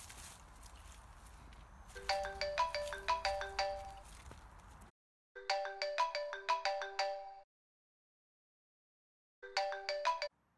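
Mobile phone ringtone: a quick melody of short chiming notes, played three times with gaps between, the last time cut short.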